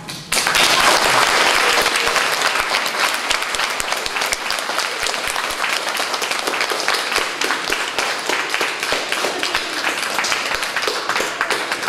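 Audience applauding: the clapping breaks out suddenly and holds steady and loud.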